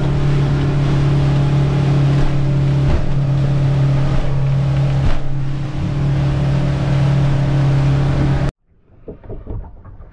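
C-Dory 22's outboard motor running steadily at cruising speed in choppy open water, heard from inside the cabin with water rushing along the hull and a few thumps as the bow hits waves. It cuts off abruptly near the end, leaving only faint, quiet sounds.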